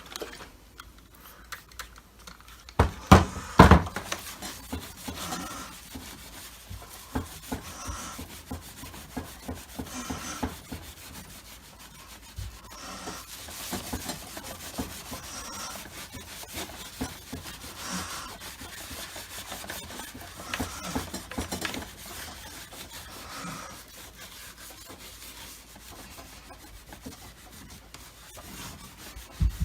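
Rubbing and scrubbing strokes on the plastic housing of a Dyson DC25 vacuum cleaner, working off paint marks, with a few sharp knocks about three seconds in.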